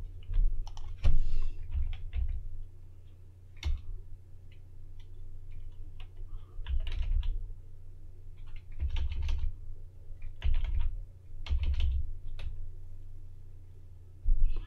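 Typing on a computer keyboard: irregular clusters of key clicks, with dull low thumps under some keystrokes and a steady low hum underneath.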